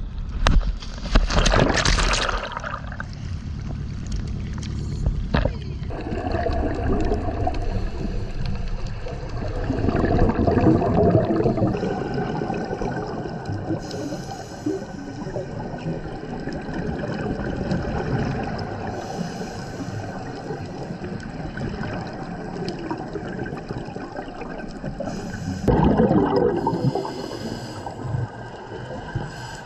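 A scuba diver splashing into the sea from a boat near the start, then the muffled underwater sound of breathing through a scuba regulator: gurgling and bubbling from exhaled air, in several bursts, with a louder rush of bubbles near the end.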